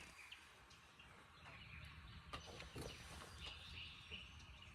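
Near silence: faint background with a few soft ticks.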